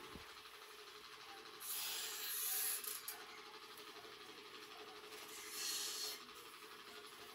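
Soldering iron on a rotary tattoo machine motor's terminal: two brief hisses of solder flux sizzling, about a second and a half in and again about five seconds in, over a faint steady hum.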